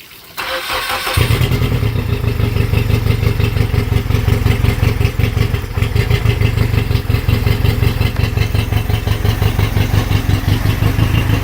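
Port outboard motor of a 2008 Everglades boat started: the starter cranks briefly, the engine catches about a second in and settles into a steady, evenly pulsing idle.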